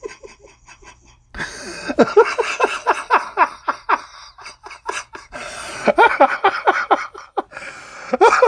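A man laughing hard, in two runs of rapid, short bursts, the first starting about two seconds in and the second about six seconds in.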